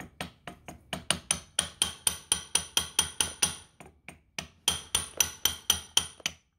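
Hammer blows on metal, about four a second with a bright ring on each strike, pausing briefly about four seconds in before resuming. The hammering is meant to knock loose a part seized by long-standing rust.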